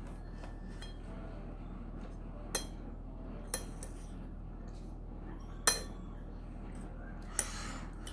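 Utensils clinking against a dish while noodles are eaten: four separate clinks, the third the loudest, over a low steady hum.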